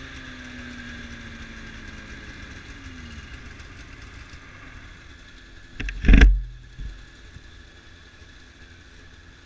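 Snowmobile engine idling steadily, one of its tones sinking slightly in pitch over the first few seconds. About six seconds in there is a brief loud rumble, after which the idle is fainter.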